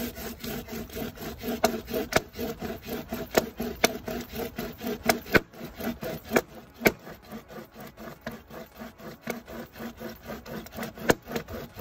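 A hand-pulled pocket chain saw, its toothed chain drawn back and forth under a log about 20 cm across, rasping through the wood in a rapid even rhythm. Louder sharp clicks stand out here and there.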